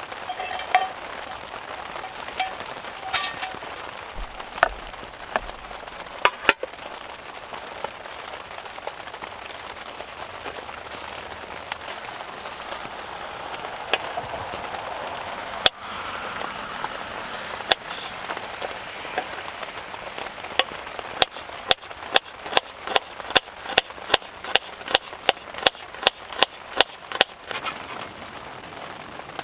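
Kitchen knife cutting garlic on a bamboo cutting board: a few scattered taps, then a quick run of sharp knocks on the board, about three a second, as the garlic is minced. Steady hiss of rain underneath.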